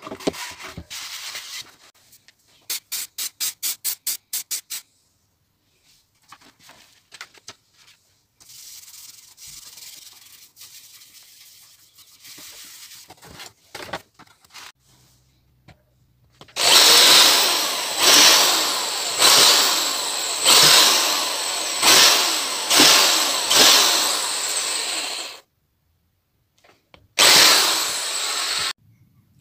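Handheld power drill boring pilot holes through a wooden board: a run of about seven loud bursts, each starting hard and easing off, and one more short burst near the end. Before it, quieter rubbing and handling sounds.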